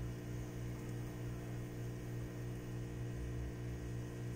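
Steady low electrical hum, even throughout, with no rustling or squeaks above it.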